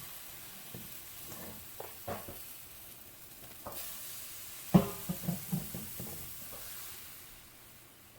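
Flour-and-water flatbread batter sizzling in a hot oiled pan just after it is poured in, with a few short knocks against the pan, a cluster of them about five seconds in. The sizzle fades toward the end.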